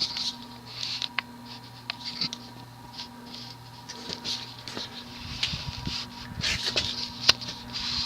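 Evergo Roma ceiling fan's cast-iron motor running at low speed: a steady low hum with loud but smooth bearing noise, a hiss and light ticking that come round about every two-thirds of a second. The bearings are worn and due for replacement. Some low irregular thuds in the second half.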